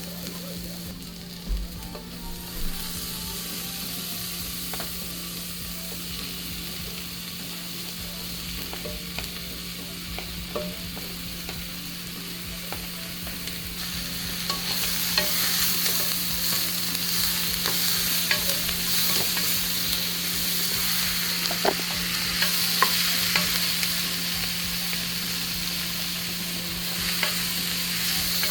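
Stew ingredients sizzling as they fry in a pot, stirred with a utensil that clicks and scrapes against it now and then. The sizzle grows louder about halfway through, over a steady low hum.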